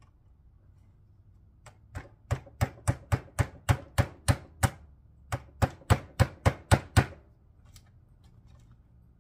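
Small hammer tapping retaining clips into a plastic radio dash-kit trim panel: quick, light taps about three a second, a run of about ten, a short pause, then about seven more.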